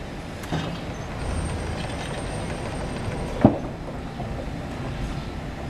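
BT RRB-2-15 electric reach truck operating, a steady low running noise with a faint high whine, a light knock about half a second in and a sharp, loud clunk about three and a half seconds in.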